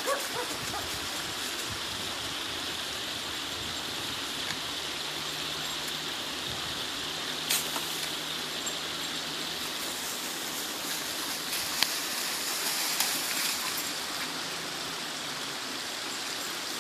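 Small woodland creek running with a steady rushing sound, with a few short clicks about halfway through and again near the end.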